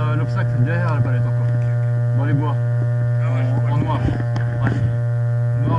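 A loud, steady electrical hum with a ladder of steady overtones, unchanging throughout, with short wavering, voice-like tones over it.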